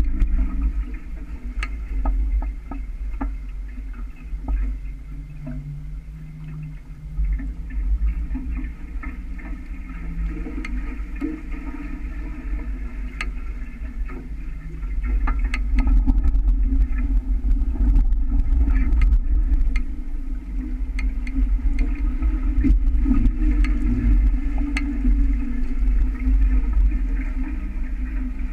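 Water rushing along the hulls of a small sailing catamaran under way, with wind buffeting the microphone and scattered small knocks and ticks; it grows louder about halfway through.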